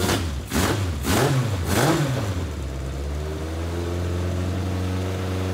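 Legends race car's inline four-cylinder motorcycle engine, on four carburetors, is blipped up about three times in quick succession and then settles back to a steady idle a couple of seconds in. The carburetors are flooding with fuel, which the mechanic puts down to worn neoprene needle seats.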